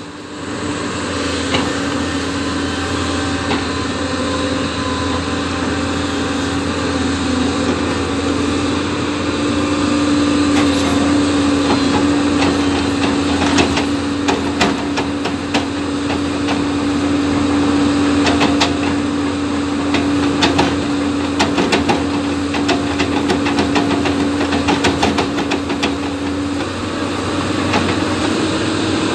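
JCB machine running with a steady engine hum. From about halfway it is joined by a rapid, irregular clatter of sharp knocks.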